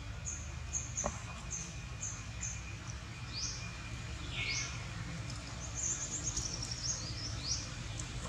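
Birds chirping in short, high notes, several in a row at times, over a steady low rumble of outdoor background noise, with a single click about a second in.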